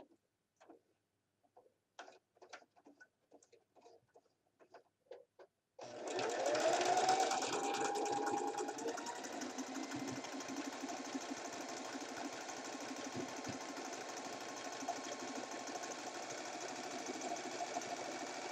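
Electric sewing machine zigzag-stitching fabric: a few faint clicks and rustles of fabric handling, then about six seconds in the motor starts suddenly, its whine rising as it comes up to speed, and runs steadily with the rapid patter of the needle.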